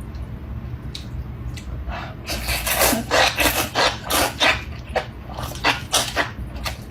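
Close-miked chewing of spicy enoki mushrooms: a few scattered mouth clicks, then from about two seconds in a fast run of crunchy, wet chewing clicks.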